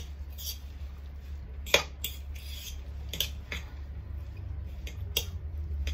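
Grated zucchini and chopped herbs being mixed by hand in a mixing bowl: a soft rustle of the mixture with scattered clicks and knocks against the bowl, the sharpest about two seconds in. A steady low hum runs underneath.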